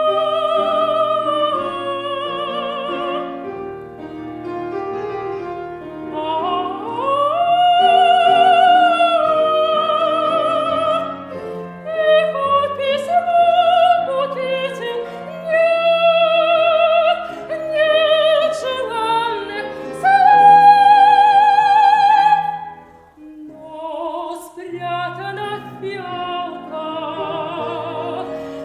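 Solo soprano singing an operetta-style song with wide vibrato, accompanied by piano. The voice climbs to a long, loud held high note about 20 seconds in, then drops away briefly before the next phrase.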